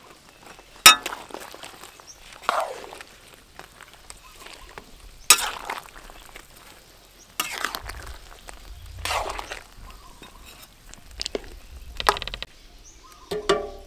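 Metal spatula stirring chopped eggplant, onion and chicken in a wok of curry, with scattered sharp clinks and scrapes against the pan. The loudest clink comes about a second in.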